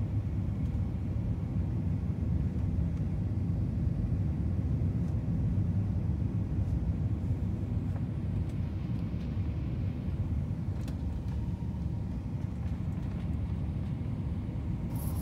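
Steady low rumble inside an airliner's cabin on approach to landing: jet engine and airflow noise heard at a window seat.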